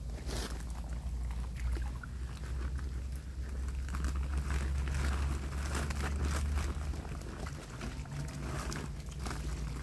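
Shallow river water splashing and sloshing as someone wades and handles a woven plastic sack, with scattered short splashes and rustles over a steady low rumble that eases off near the end.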